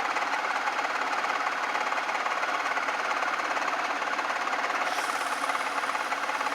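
Craftsman 109 metal lathe running, with a fast, even mechanical rattle from its drive. About five seconds in, a higher hiss joins it.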